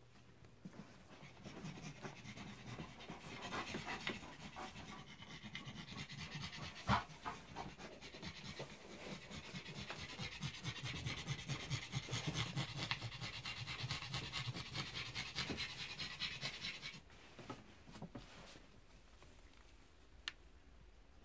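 A dog panting quickly and rhythmically, fading out about three-quarters of the way through. A single sharp click about seven seconds in is the loudest sound.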